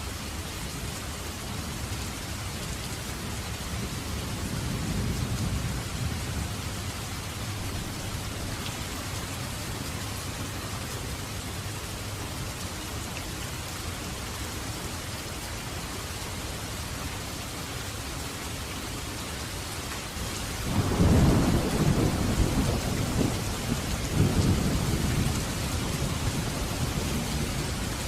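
Heavy rain falling steadily in a dense hiss. A faint low roll of thunder comes about five seconds in, and a louder deep rumble of thunder breaks in about three quarters of the way through, lasting several seconds before fading.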